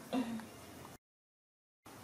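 A brief voice sound, a short single pitched syllable, then the audio cuts out to dead silence for almost a second.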